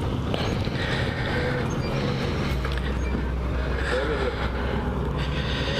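Motorcycle engine idling steadily, its low hum dropping slightly in pitch about halfway through.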